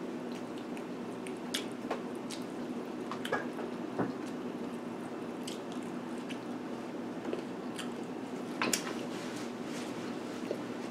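Close-up mouth sounds of people eating pizza: scattered wet chewing and lip smacks, a few sharper clicks, over a steady low background hum.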